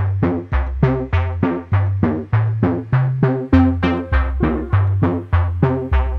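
Fairground organ playing a tune: pipe notes over a changing bass line, with its drums striking a steady, regular beat.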